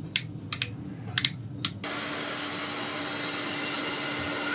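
A few sharp clicks, then a Black & Decker heat gun starts blowing just under two seconds in: a steady rush of air from its fan with a faint constant hum.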